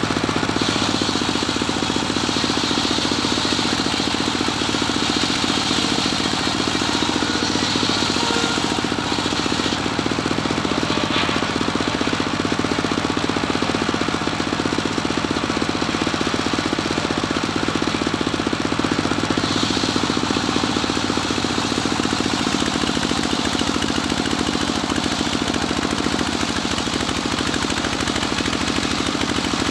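Homemade engine-driven circular sawmill running steadily while its blade saws a cempaka log lengthwise into boards, a higher sawing whine coming and going over the steady engine.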